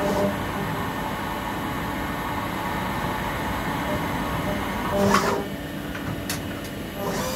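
Weiler DZ 42 CNC lathe running with a steady machine hum. About five seconds in, and again near the end, its tool turret moves, giving a short whirr each time, with a couple of light clicks in between.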